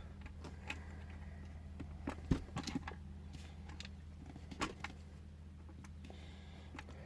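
Scattered small clicks and taps of hard plastic toy parts being handled and fitted together, the sharpest about two seconds in, over a low steady hum.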